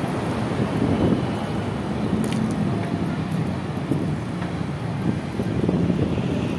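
Steady wind rush on the microphone with road and traffic noise from a vehicle in motion on a city street.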